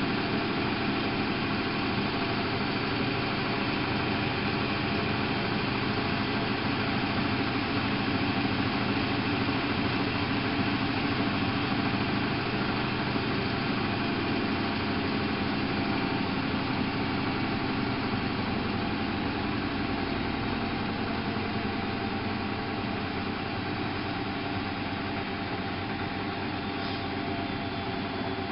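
Miele Novotronic W830 washing machine running with a steady motor hum, the deepest part of the hum dropping away about two-thirds of the way through.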